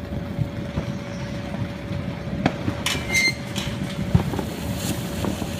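Black Cat 1.21 Gigawatts fountain firework catching about halfway through with a brief high hiss and thin whistle, then starting to spray sparks with a hiss and a few sharp crackles. Underneath is a steady low rumble.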